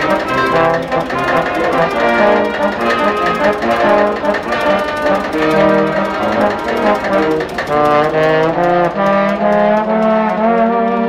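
Live brass ensemble of trombones and trumpets playing a tune, the notes changing throughout, then settling into long held notes in the last couple of seconds.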